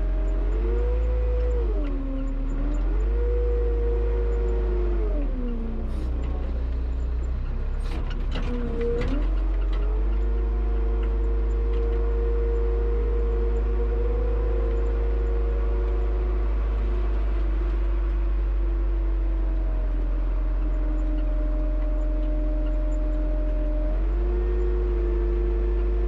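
Front-loader tractor engine running, its pitch dropping and rising several times in the first ten seconds, then holding mostly steady with a couple of small step changes. A few sharp clanks about eight seconds in.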